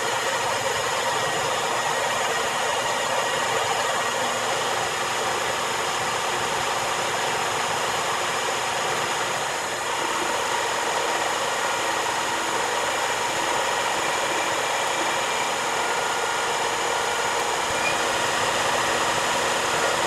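Metal lathe running steadily while a boring bar cuts inside a 3-inch round collar, boring out the last of the hole to slip over a 2-inch shaft. A steady machining hiss with several constant whine tones over it.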